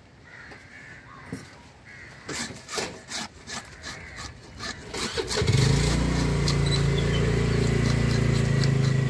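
A knife scrapes scales off a fish on a wooden block in a run of short rasping strokes. About five seconds in, an engine starts close by and runs on steadily, louder than the scraping.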